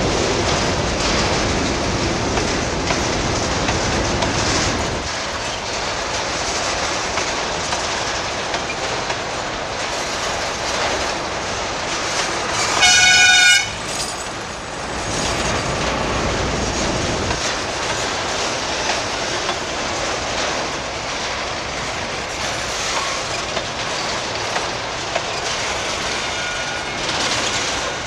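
Freight wagons rolling steadily past on the rails, a continuous noisy rumble of wheels on track. About 13 seconds in, the train's horn sounds one short, loud blast, under a second long.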